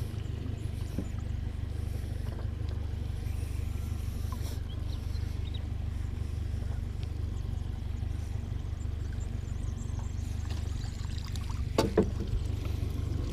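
A steady low rumble runs throughout while a pot rope is hauled in. A sharp knock comes about twelve seconds in, as the redclaw pot comes aboard the aluminium boat.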